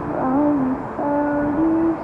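Music: a slow line of long held notes, about half a second each, with one note bending up and back down near the start.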